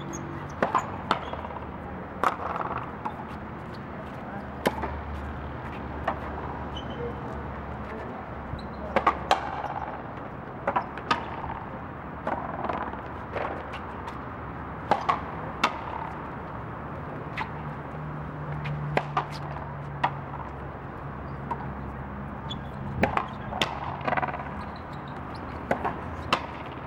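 Frontón rally: the rubber ball cracking off strung racquets and the court wall, sharp impacts every second or so, often two in quick succession.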